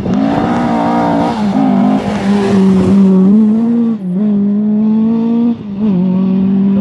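Rally car driving flat out past on a gravel stage, its engine note rising and dropping back several times. The noise of tyres on loose gravel is strongest around the middle, as the car passes closest.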